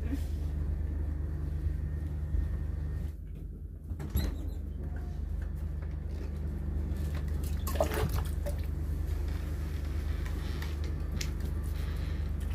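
Steady low machine hum throughout, with a few light knocks and clatters of handling, one about four seconds in and another about eight seconds in.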